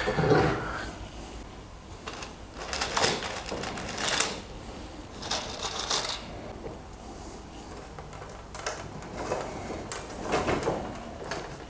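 Scattered rustling and clattering of workshop handling: thin plywood kayak panels shifting and knocking on a wooden workbench, and copper stitching wires being picked up and threaded through the panels. There are about half a dozen separate bursts, the strongest just after the start.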